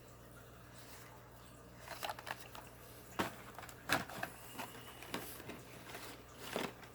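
Handling noises of carded Hot Wheels die-cast cars being pulled out and set down: scattered light clicks and rustles of cardboard and plastic blister packs, a handful over a few seconds, over a faint steady hum.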